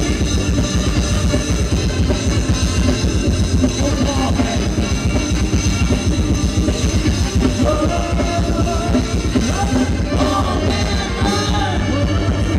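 Loud live Thai ramwong dance music from a band, a drum kit keeping a steady beat under singing.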